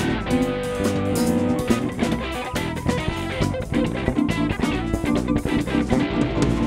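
Live band playing an instrumental funk tune: electric guitar, bass guitar, drum kit and electric keyboard together, with steady drum hits throughout.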